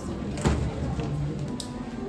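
Background music with steady held notes, with a single dull thump about half a second in.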